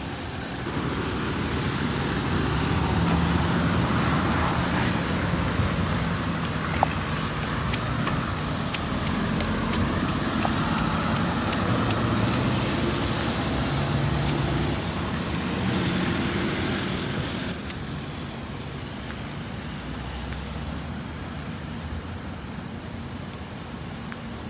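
MAN TGS 26.320 garbage truck's six-cylinder diesel engine running as it drives along a wet road, with tyre hiss from the wet surface and rain. The engine fades out about three quarters of the way through, leaving a steady rain and road hiss. There is one sharp click about seven seconds in.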